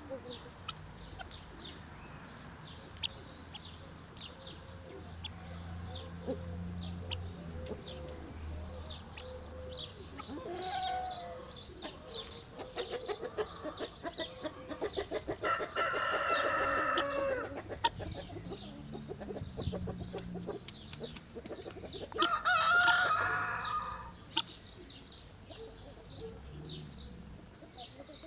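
Backyard chickens clucking throughout, with a rooster crowing twice, once a little past the middle and again a few seconds later.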